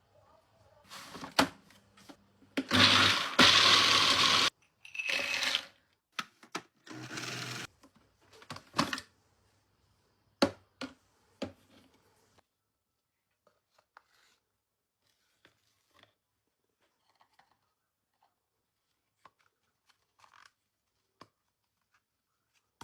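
Blender grinding roasted hazelnuts in several short bursts of a second or two each, with sharp clicks between them. After about twelve seconds it goes almost quiet, leaving only faint scattered clicks.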